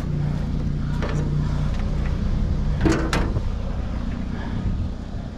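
A steady low engine hum, like a vehicle idling, with a few brief knocks and rustles about a second in and again around three seconds.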